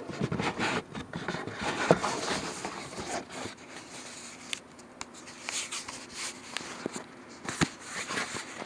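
Handling noise from the recording camera being picked up and moved: irregular rubbing and scraping against the microphone, with several sharp clicks and knocks, the loudest near the end.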